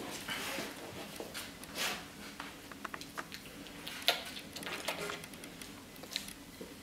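Golden retrievers licking and nuzzling a puppy: soft, irregular mouth and fur-rustling sounds with scattered small clicks, one sharper tick about four seconds in.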